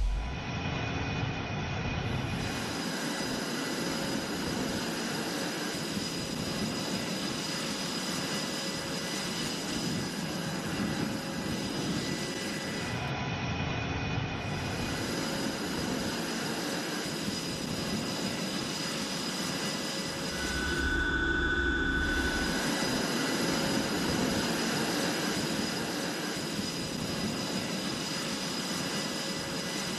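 Fighter jet engines running on a carrier flight deck: a steady jet rush with several constant high whining tones. The sound swells slightly with a deeper rumble around 21 seconds in.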